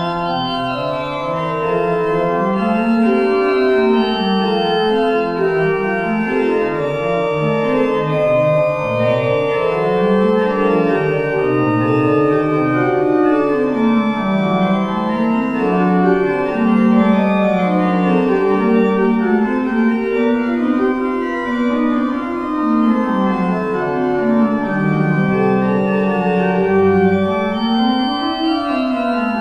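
Church organ playing the postlude: held chords over a slowly moving lower line, without a break.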